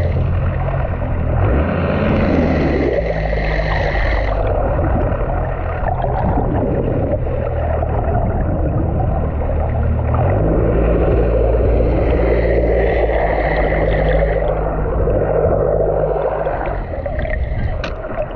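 A fishing boat's engine running, its note shifting about two seconds in and again about ten seconds in, then dropping away near the end, with water rushing and sloshing along the hull.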